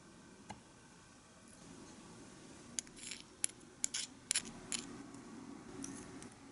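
A tiny metal spoon clinking and scraping against a small ceramic dish and a glass bowl as ingredients are scraped off: a quick run of sharp little clicks in the middle, a few more near the end.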